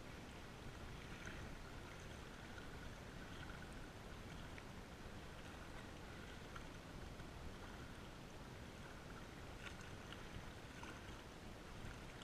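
Wind buffeting the microphone over small waves lapping against a rocky lake shore, a steady rough rush with a few faint ticks.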